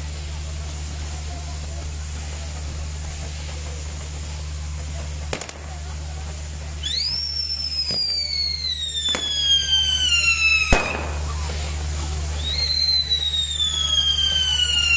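Castillo fireworks tower burning, its spinning fire wheels hissing steadily. Partway through come a few sharp cracks. Then a long whistle slides slowly down in pitch and is cut off by a loud bang, and a second falling whistle starts near the end.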